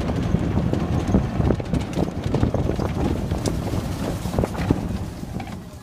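Golf cart driving over a rough dirt and gravel track: a steady low rumble with irregular rattles and knocks from the cart jolting over bumps, and wind on the microphone. It gets quieter near the end.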